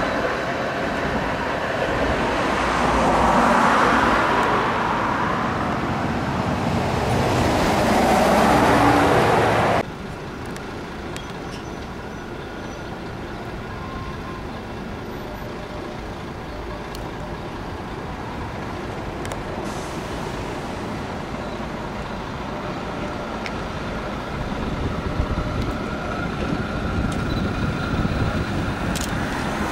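A Variobahn low-floor tram running past close by, its rolling and motor noise swelling twice before cutting off suddenly. This gives way to quieter street traffic noise. Near the end a tram approaches with a faint steady whine growing louder.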